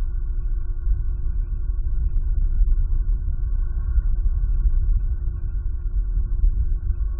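Fluctuating low rumble with a steady hum over it, the background noise of an outdoor eagle-nest camera microphone. No eagle calls stand out.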